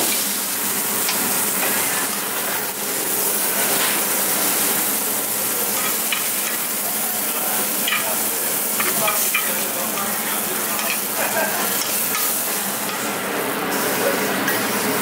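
Meat and leeks sizzling in duck fat in a stainless steel frying pan, a steady hiss with scattered light clinks of tongs against the pan.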